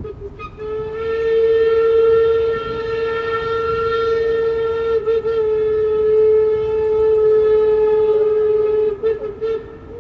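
Steam locomotive whistle blowing one long, steady blast of about nine seconds. It dips briefly about halfway through and breaks into a few short toots near the end.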